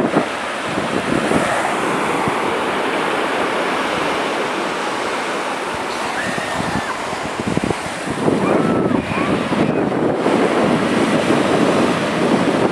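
Surf breaking on a sandy beach, a steady wash of waves with wind buffeting the microphone, growing louder about eight seconds in.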